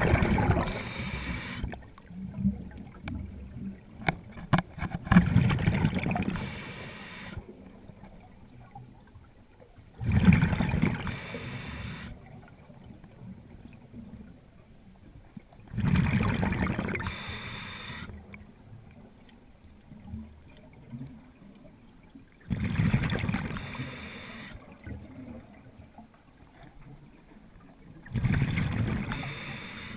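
Underwater breathing of a diver: bursts of exhaled bubbles gurgling roughly every six seconds, each lasting a second or two.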